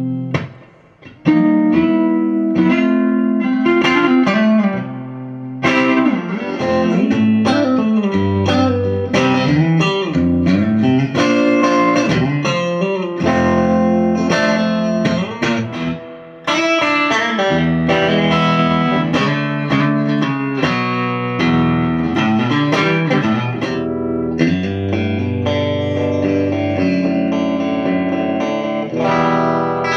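Crews Maniac Sound OST-60 Strat-style electric guitar played in phrases of chords and single notes. It is heard first on the front single-coil pickup, then on the front and centre pickups together, then on the centre and rear pickups together, with short pauses between phrases.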